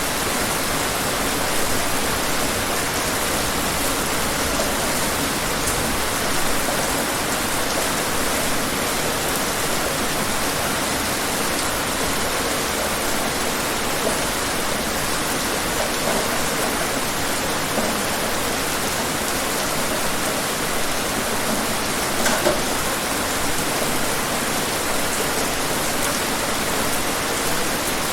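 Steady rain falling outdoors, a dense even hiss of drops with an occasional louder single drop standing out.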